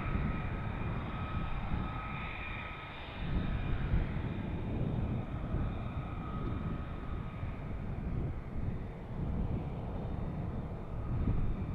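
Single-engine F-35A's Pratt & Whitney F135 jet engine heard at a distance as a gusty rumble with a faint whine that fades out over the second half.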